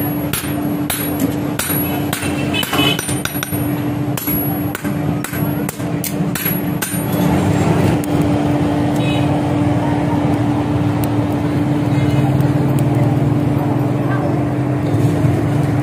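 Hand hammer blows on steel being forged, irregular strikes about two a second, stopping about seven seconds in. A steady machine hum runs underneath and grows louder and deeper after the hammering stops.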